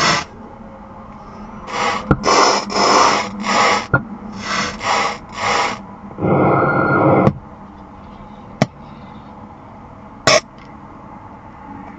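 Bursts of loud crackling static from a 2018 BMW M2's audio speakers: a run of about seven short bursts, then a longer one about six seconds in, with sharp clicks between and a last short burst near the end. The owner blames a faulty amplifier.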